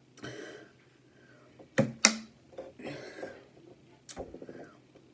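A few sharp knocks and crackles from an emptied plastic water bottle being handled and set down on the table, the loudest two close together about two seconds in and another about four seconds in.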